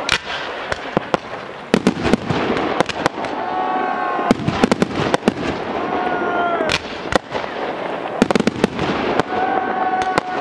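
Aerial fireworks display: a rapid, irregular stream of sharp bangs from bursting shells over continuous crackling.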